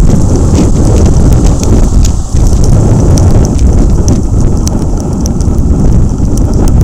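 Strong wind buffeting the microphone, loud and crackling, over the rush of heavy surf breaking on the shore. It eases briefly a little over two seconds in.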